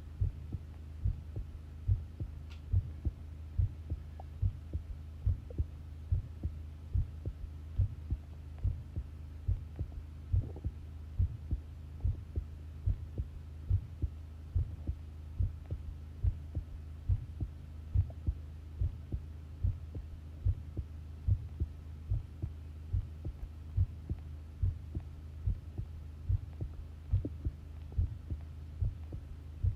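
Human heartbeat picked up by a microphone on the body: regular low thuds, about one beat a second, over a steady low hum.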